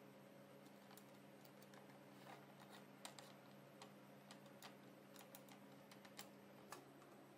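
Near silence with a few faint, scattered light clicks and taps as a stop block is slid and set along an aluminium fence track, over a faint steady low hum.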